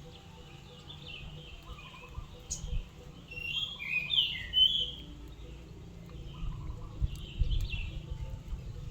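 Caged sogon songbird chirping in short, high, repeated phrases, busiest and loudest a few seconds in, over a low background rumble.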